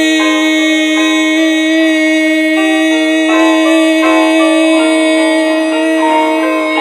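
Instrumental music with no singing: a held low note runs under a shifting line of higher notes.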